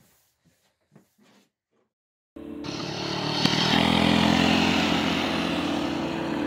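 Near silence for about two seconds, then small mini-bike engines running at speed cut in suddenly and carry on loud and steady.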